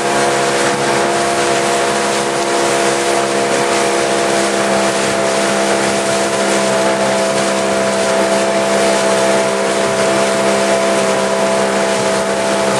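Motorboat engine running at a steady speed, a constant hum under a rush of wind and water.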